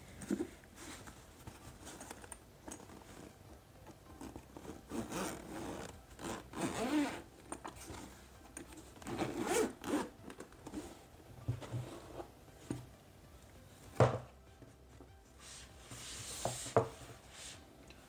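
Zipper on a fabric-covered carrying case being unzipped around its edge in a series of short pulls, with the fabric rubbing. A single sharp knock about 14 seconds in.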